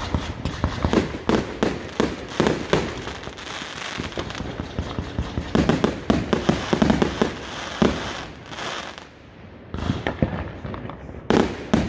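Fireworks going off in a rapid string of bangs and crackles, densest about halfway through. A short lull follows, then a few more loud bangs near the end.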